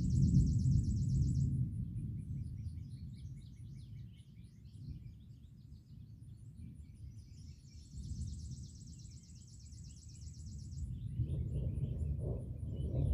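Rolling thunder, a low rumble that fades away over the first few seconds and builds again into a new peal about two seconds before the end. Insects trill in short spells, and birds chirp.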